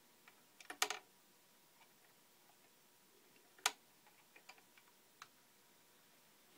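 Clicks and clacks of a Dual CS 505-3 turntable's tonearm and control levers being handled by hand: a quick cluster of clicks about a second in, one sharp click near the middle, then a few light ticks.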